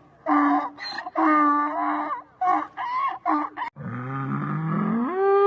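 Chicken calls: a run of short, pitched squawks for about three and a half seconds. After an abrupt cut, a long, low call from another farm animal rises in pitch and is held through the end.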